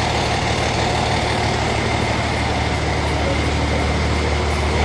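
Volkswagen Constellation truck's diesel engine idling steadily.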